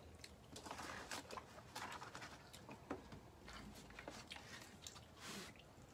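Faint, scattered clicks and rustles of eating at a table: chewing, and hands handling a plate and a cardboard pizza box, with a short hiss about five seconds in.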